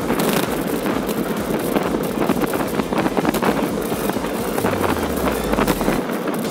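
Wind buffeting the microphone over the rush of bicycle tyres rolling on asphalt, with many small clicks and rattles. A deeper rumble from the wind comes in about five seconds in.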